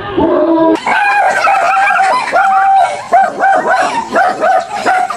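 Dog barking rapidly in high-pitched barks, about three a second, from about a second in.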